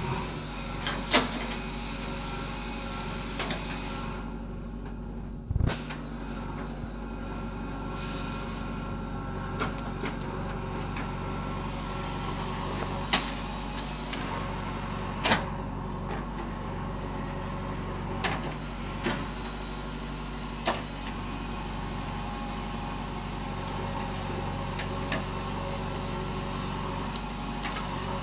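JCB backhoe loader's diesel engine running steadily under load while the backhoe digs, with several sharp knocks from the arm and bucket working in the stony soil.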